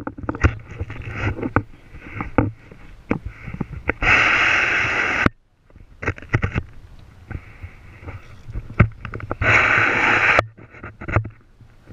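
Fishing reel whirring in two bursts of about a second each, each starting and stopping abruptly, between irregular sharp clicks and knocks.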